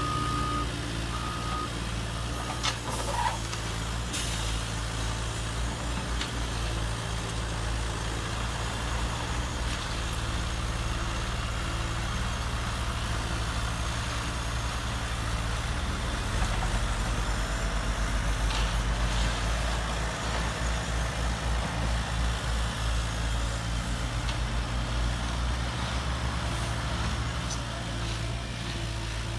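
RC model trucks and excavators with simulated diesel-engine sound, running with a steady low drone. Two short reversing beeps sound at the start.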